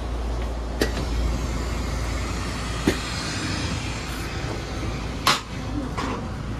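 Passenger train running, heard from inside a carriage: a steady rumble and hiss with a few sharp knocks at uneven intervals, the loudest about five seconds in.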